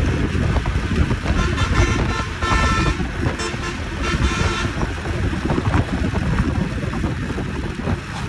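A vehicle horn honks twice, the first about two and a half seconds in and a longer one about a second later. Both sound over heavy wind rumble on the microphone from riding a moving motorcycle.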